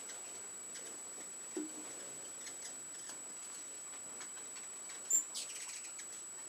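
Ruby-throated hummingbirds around nectar feeders: scattered faint high ticks and wing whirs, then one sharp high chip about five seconds in, followed by a brief buzzy chatter.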